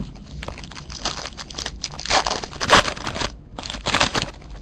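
Foil wrapper of a 2011 Bowman Chrome baseball card pack crinkling and tearing as it is opened by hand, in a run of crackly rustles with a short pause about three and a half seconds in.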